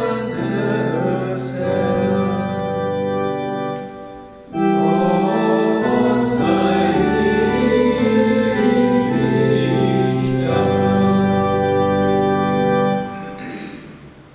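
Church organ playing slow, held chords in two phrases, with a short break about four seconds in and dying away near the end.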